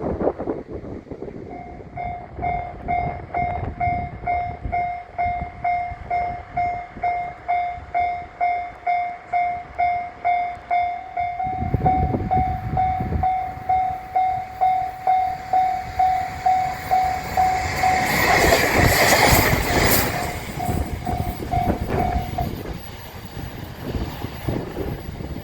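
Japanese railway level-crossing warning bell ringing in rapid, evenly spaced dings. Starting about halfway through, a train comes through the crossing with rising wheel-on-rail noise, loudest a little over two-thirds of the way in, and the bell stops soon after the train has passed.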